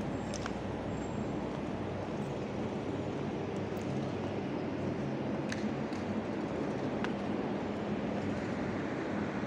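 City street background noise: a steady low hum of vehicle engines and traffic, with a few faint clicks.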